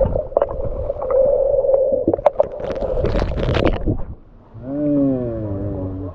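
Underwater pool sound picked up by a submerged action camera: a muffled steady hum with scattered clicks and pops. About three seconds in, the camera breaks the surface with a burst of splashing. Near the end there is a short, wavering, muffled pitched sound.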